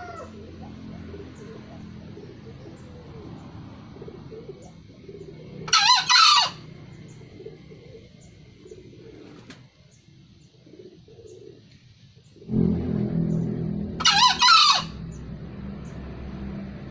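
Green junglefowl crowing twice, about eight seconds apart; each crow is a short, shrill two-part call lasting under a second. A low rumble in the background grows louder for the last few seconds.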